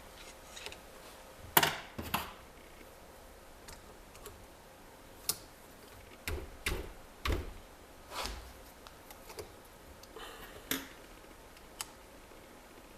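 Scattered light metal clicks and knocks, about a dozen spread irregularly, as small steel parts of a manual gearbox (shaft, synchronizer pieces, stopper) are handled and set down during disassembly.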